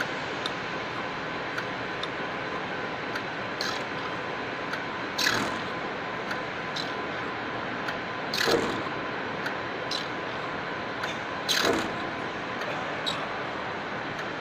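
Slotting machine running a keyway cut: a steady machine hum with regular clicks, and about every three seconds a louder sweeping scrape as the ram makes its stroke, three in all.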